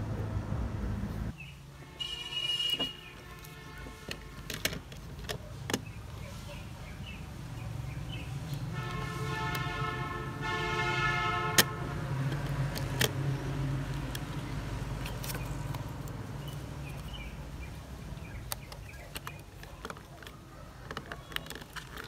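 A small electric motor whirring in two short runs, the second one a few seconds long, with plastic clicks and knocks from parts being handled. A low steady hum stops about a second in.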